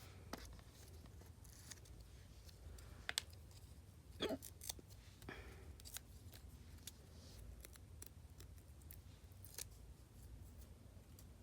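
Faint scattered clicks and small snips from working with nail polish strips, with a short, louder hiccup about four seconds in.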